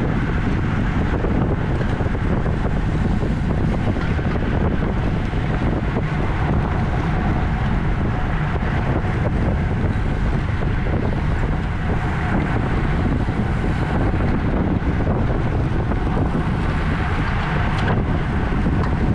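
Steady rush of wind on the microphone of a camera travelling with a bicycle race at racing speed, around 26 mph.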